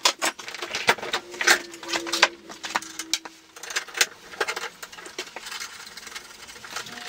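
Metal parts and tools clanking and clinking as the front wheel hub and steering parts of a small ATV are handled: an irregular run of sharp knocks and clinks, a few ringing briefly.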